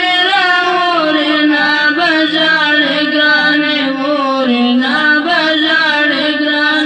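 A boy singing a chant into a microphone: a single voice in long held melodic phrases that bend and waver in pitch, with no instruments.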